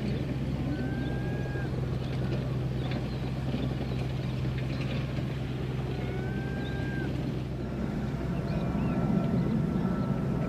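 Steady low hum of an engine running, growing a little louder near the end, with a few faint whistled bird calls now and then.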